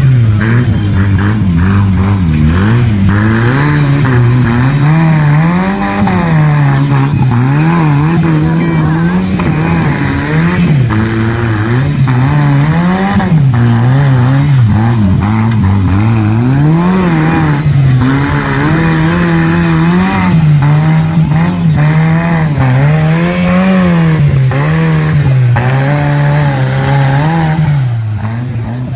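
Small tractor engine revving up and down again and again as the tractor churns through deep mud. The pitch rises and falls every second or two.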